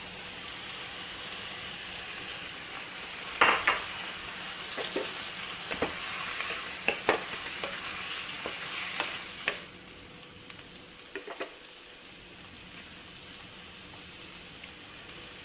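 Chopped raw papaya, onion and grated coconut sizzling in a pan just after a splash of water is added, with a spoon knocking and scraping against the pan as the mix is stirred. The sizzle and stirring die down about two-thirds of the way through, leaving a faint hiss.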